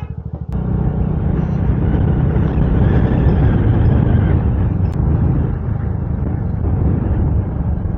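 Motorcycle engine ticking over in even pulses, then pulling away about half a second in and running steadily under load.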